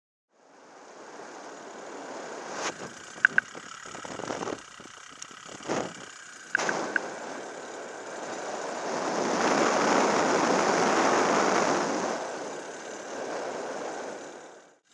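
Paramotor engine running on in flight at low throttle with wind rushing past: it will not shut off, because the kill switch's ground wire is suspected cut. A few sharp clicks come about three seconds in, and the rushing swells louder past the middle.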